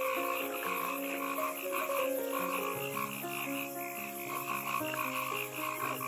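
Frog croaking in quick repeated pulses, with soft background music underneath.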